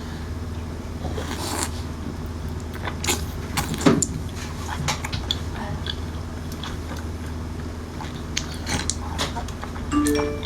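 Close-miked chewing of small whole squid in chili oil: scattered wet clicks, smacks and crunches, the loudest about four seconds in, over a steady low hum.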